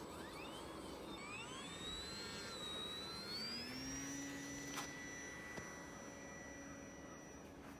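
Distant RC plane's electric motor and propeller whining as it throttles up on snow: the pitch wavers, rises from about a second in, and settles into a steady high whine by about four seconds in. A single sharp click sounds about five seconds in.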